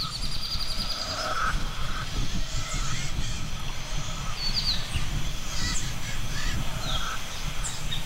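Rainforest ambience: scattered short bird calls and chirps, with a rapid high trill in the first half-second, over a steady low rumble.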